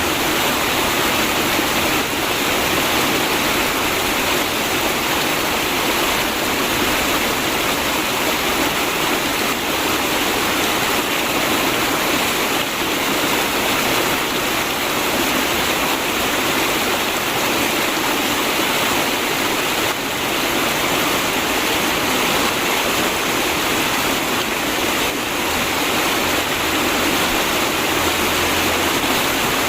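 River water flowing and rushing over rocks, a steady, even gurgling rush.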